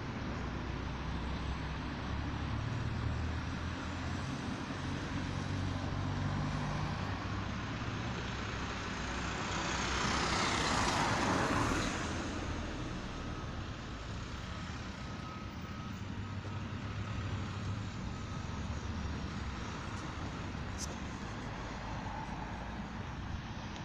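Road traffic: low, steady engine rumble, with one vehicle passing close about ten seconds in, its noise swelling and then dropping away shortly after.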